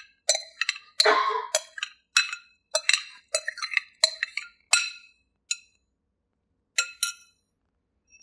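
A spoon clinking and scraping against a bowl, about two strikes a second, as the melted white chocolate and cream mixture is spooned out. The strikes thin out after about five seconds, with a last pair near seven seconds.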